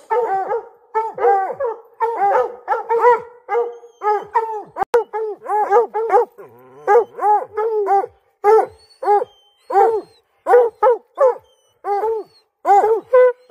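Several hunting hounds barking treed: a steady run of short, loud chop barks, about two a second and sometimes overlapping, the sign that they have a bobcat up the tree.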